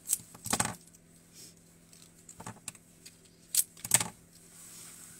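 A tulip stem being handled and stripped of its leaves, with scissors on the bench: about five short, crisp clicks and snaps, the loudest two close together about four seconds in.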